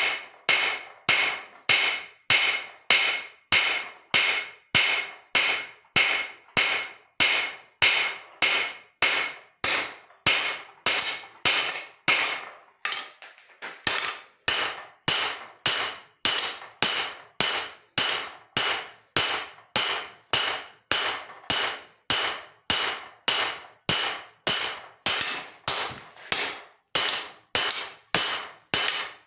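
Hand hammer striking leaf-spring steel on an anvil in a steady forging rhythm, about one and a half blows a second, each blow ringing. The hammering breaks off briefly about halfway through.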